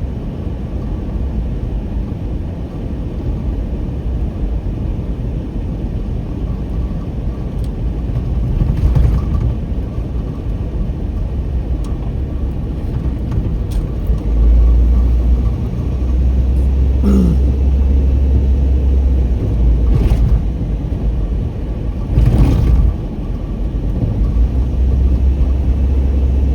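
Car road noise and engine rumble heard from inside the cabin while driving. The low rumble gets louder about halfway through, and a few brief noises cross it.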